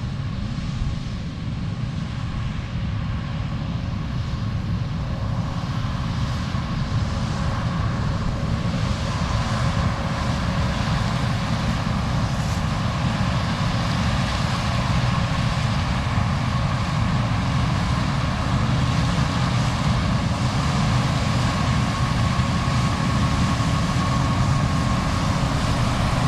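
Heavy diesel farm-vehicle engine running steadily, slowly getting louder over the first ten seconds.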